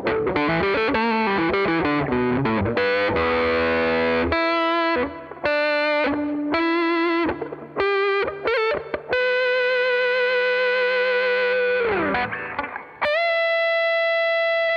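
Epiphone ES-339 semi-hollow electric guitar played through Soul Food overdrive and RAT distortion pedals. It plays a distorted lead line of quick notes, then long sustained notes, with a note bending down about twelve seconds in before a final held note.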